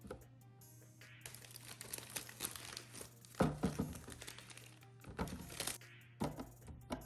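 Plastic packaging crinkling and rustling as produce is handled, with a few knocks of containers about halfway through, over soft background music.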